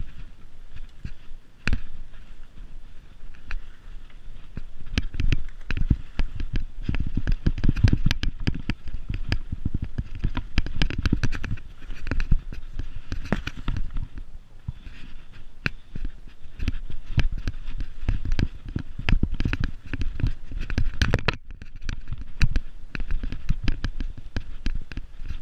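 Mountain bike riding down a rough grassy singletrack: a fast run of rattles and knocks from the bike and tyres over bumps, with a low rumble that swells in the middle and again near the end and drops out briefly about three quarters of the way through.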